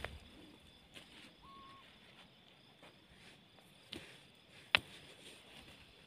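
Hands working dry, stony soil over a small grave: faint scraping and a few light taps, with one sharp knock about three-quarters of the way through, over quiet outdoor background.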